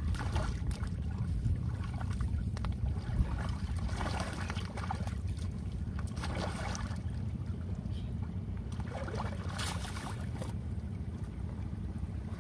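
Shallow seawater sloshing and splashing in a few short bursts as a Komodo dragon tugs at a large tuna, over a steady low rumble of wind on the microphone.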